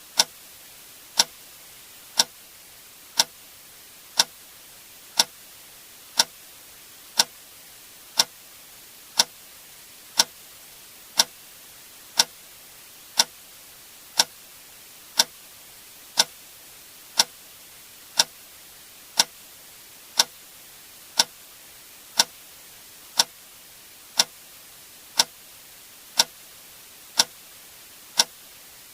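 A sharp click sound effect repeating exactly once a second, like a metronome, over a faint steady hiss.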